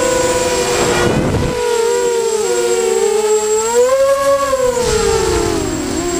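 Multirotor drone's electric motors and propellers whining, heard from a camera mounted on the drone. Several close pitches beat against one another and rise together to a peak about four seconds in, then fall away. There is a short rush of wind noise about a second in.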